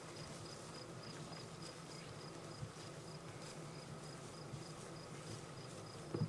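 An insect chirping: a thin, high note pulsing evenly about three times a second, with a short low thump just before the end.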